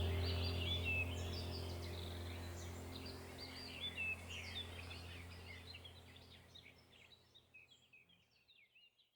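Small birds chirping and whistling over a steady low hum, the whole sound fading out evenly to silence.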